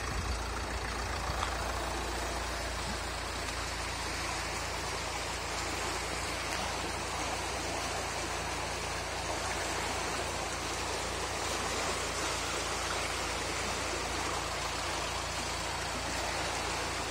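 Canal water rushing steadily in a fast, turbulent flow.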